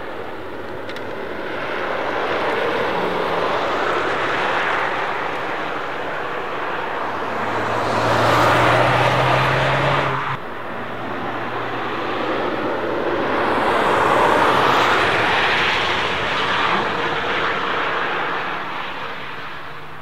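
Rimac Nevera electric hypercar passing at speed, heard mostly as tyre and wind rush that swells and fades, with the electric motors' whine buried underneath. It happens twice: the first pass cuts off suddenly about ten seconds in, and the second swells up and fades away.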